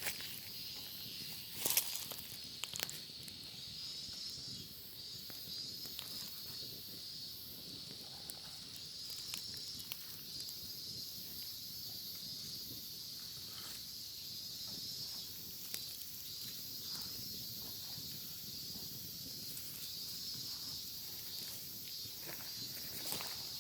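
Cicadas droning in a steady, high, wavering chorus, with scattered sharp crackles and pops from a wood fire, the loudest about two seconds in.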